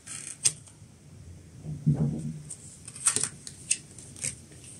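A few quiet, scattered clicks and taps, with a brief low hum about two seconds in.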